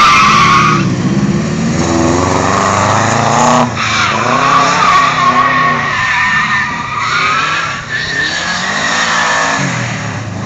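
Rear-wheel-drive turbo Subaru Forester drifting: the tyres squeal in long stretches with a few short breaks, while the flat-four engine's revs rise and fall.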